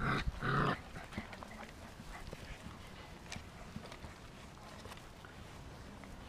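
Golden retriever puppy giving two short yips in quick succession right at the start, followed by only faint scattered rustling and ticks.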